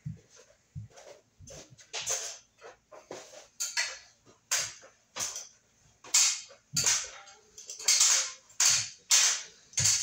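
Footsteps coming closer and then climbing an aluminium ladder: a series of knocks and scuffs, one or two a second, growing louder toward the end.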